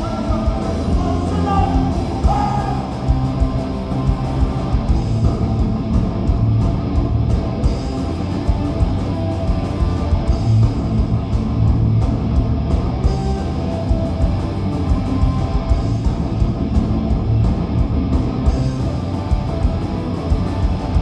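Punk rock band playing live and loud: distorted electric guitars and bass over a fast, steady drumbeat.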